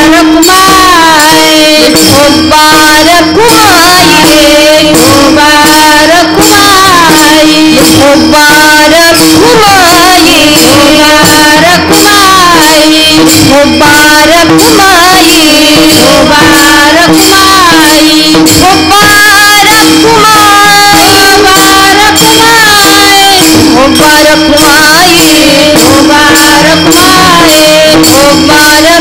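Marathi devotional kirtan music: a winding, ornamented melody over a steady held drone, with small hand cymbals clashing in a rapid, even rhythm.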